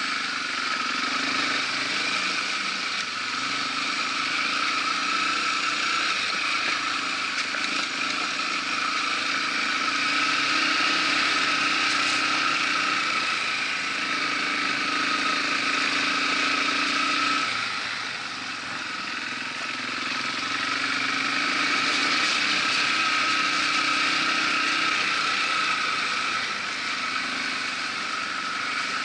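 Yamaha TW200's single-cylinder four-stroke engine running at low trail speed, its revs rising and easing in stretches over a steady hiss. The engine drops back and goes quieter about two-thirds of the way through, then picks up again.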